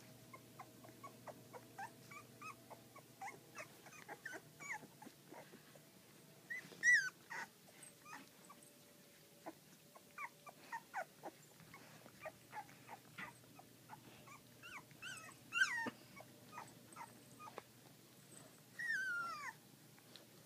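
Two-week-old puppies squeaking and whimpering: many short, thin squeaks scattered throughout, with a couple of louder cries and, near the end, one longer whine that falls in pitch.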